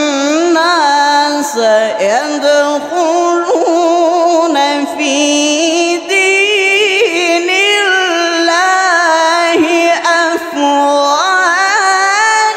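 Quran recitation: a reciter's voice drawing out long, ornamented melodic phrases in a high register, the pitch winding up and down, with short breaks between phrases.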